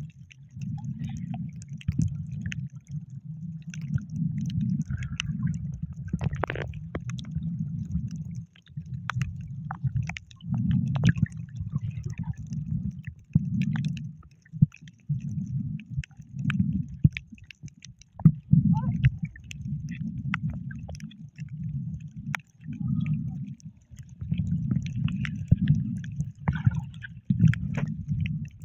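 Muffled underwater sound of moving water: low rumbling surges that swell and fade about every second or so, with scattered faint clicks and crackles.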